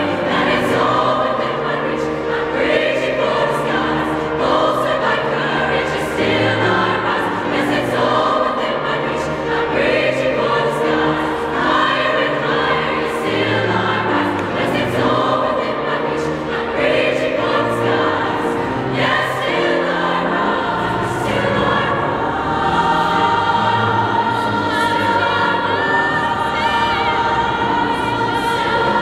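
High-school girls' choir singing a choral piece in several-part harmony, at a steady full volume.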